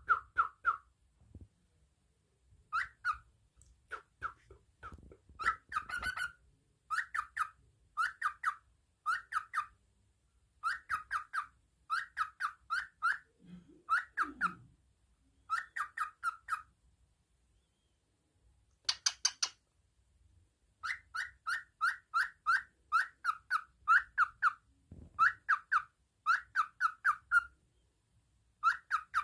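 Pet cockatiel calling: groups of three to six quick chirping whistles, a group about every second, with a short pause in the middle.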